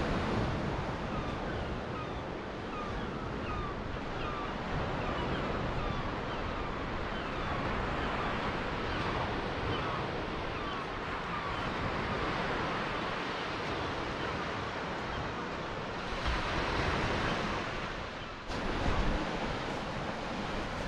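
Baltic Sea surf washing steadily on a sandy beach, mixed with wind buffeting the microphone.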